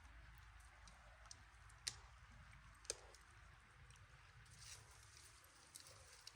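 Near silence: a faint steady hiss with scattered light clicks, two sharper clicks about two and three seconds in.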